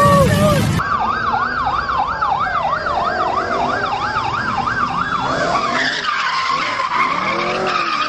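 A police siren in a fast yelp, rising and falling about three times a second. From about six seconds in, it gives way to car tyres squealing as a car drifts round in a circle.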